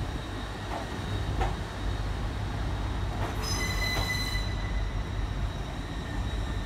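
LNER express train running slowly through the station on steel rails. A low rumble carries a thin, steady wheel squeal, and a brief, shriller squeal rises about three and a half seconds in.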